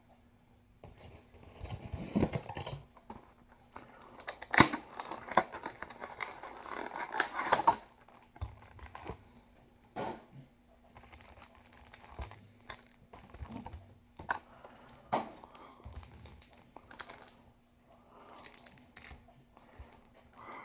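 A trading-card booster pack's wrapper being torn open and crinkled, a dense rustle for several seconds, followed by scattered light clicks and soft rustles of the pack and cards being handled.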